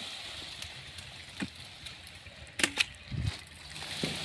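A short-handled hoe chopping into dry, stony soil around a tree's root ball. There are sharp metal-on-earth strikes every second or so, two of them in quick succession past halfway, then a duller thud.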